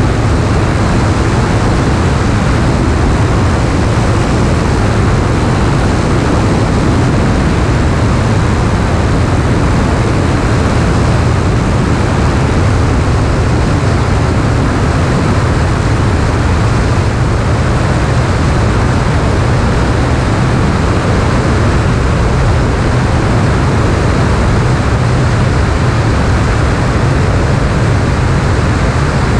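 A Piper PA-28-161's four-cylinder Lycoming engine and propeller running steadily in the climb. The sound is a loud, unchanging low hum with a rushing hiss over it.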